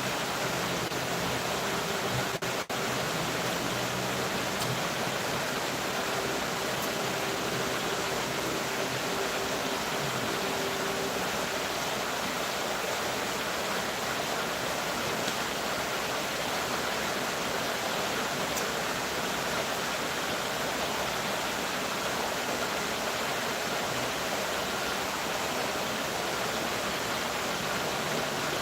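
Rain falling, a steady even hiss, with a brief dropout about two and a half seconds in.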